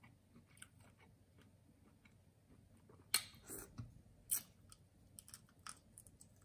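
Close-miked mouth sounds of a person eating sauce-covered shrimp by hand: quiet chewing clicks, with a few sharp wet smacks about three seconds in and another a second later as the food goes to the mouth and the fingers are sucked.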